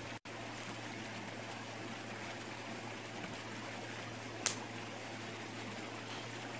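Steady rushing and trickling of a small mountain stream over rocks, with one sharp knock about four and a half seconds in.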